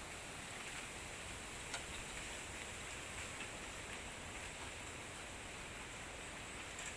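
Steady background hiss with one faint click about two seconds in; no calls or other distinct sound.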